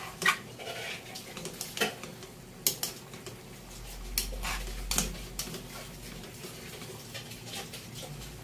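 Metal cooking utensil clinking and scraping against a stainless steel pan while stirring, with a handful of sharp clinks spread through.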